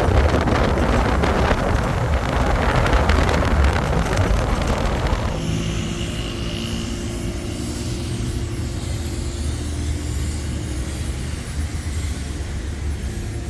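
A loud rushing noise that cuts off suddenly about five seconds in, giving way to a steady low motor hum.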